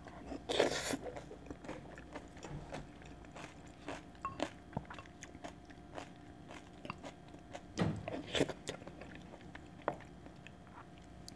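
Close-miked eating sounds: faint chewing and wet mouth clicks of a person eating chicken rice porridge, with a wooden spoon scooping from a ceramic bowl. Two louder brief noises stand out, about half a second and eight seconds in.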